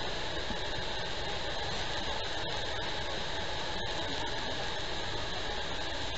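Steady, dense roar of Niagara Falls and its spray, heard up close from the boat.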